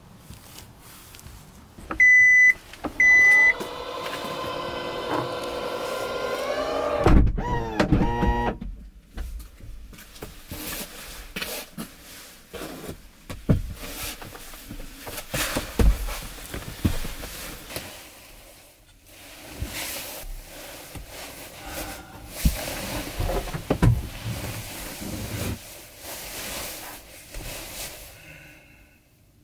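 Kia Niro power tailgate closing: two warning beeps, then its motor runs for about three seconds with a slightly rising whine and ends in a slide and a thump as it latches. Then rustling and scattered knocks as someone moves about inside the car.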